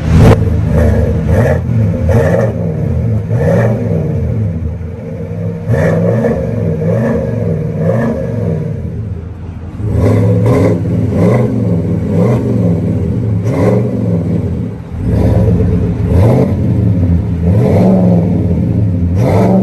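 GMC Sierra 1500's 5.3-litre V8 breathing through a Kinney's Tunnel Ram true-dual performance exhaust with quad tips, revved again and again in short blips from idle, each rev rising and falling back in pitch.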